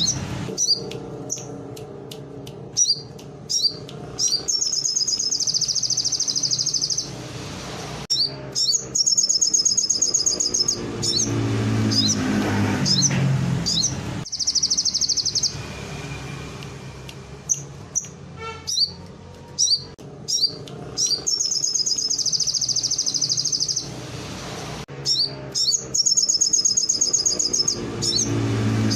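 Crimson sunbird (sogon) singing canary song it has learned: fast, high, rolling trills of one to two and a half seconds, five in all, separated by short sharp chirps.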